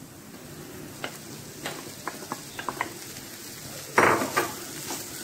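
Boiled soya chunks tipped into a nonstick pan of onion-tomato masala, frying with a low sizzle and a few light knocks. About four seconds in, a wooden spatula scrapes and stirs them through the pan.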